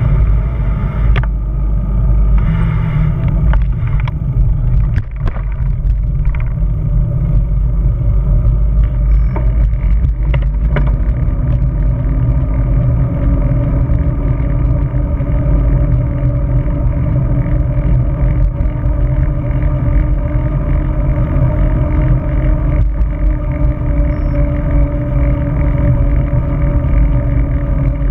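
Wind buffeting the microphone of a bicycle-mounted action camera while riding on the road, a loud steady rumble with road and tyre noise underneath. A few sharp clicks come in the first part, and a faint steady hum joins about halfway through.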